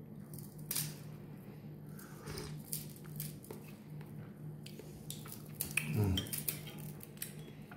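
A man eating a spoonful of soup: small mouth and chewing clicks scattered throughout, over a steady low hum. A short murmur about six seconds in.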